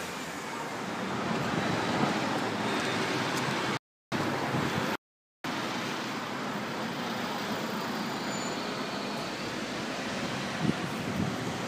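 City street traffic: a steady rush of passing cars that builds over the first two seconds and then holds. The sound cuts out completely for a moment twice, about four and five seconds in.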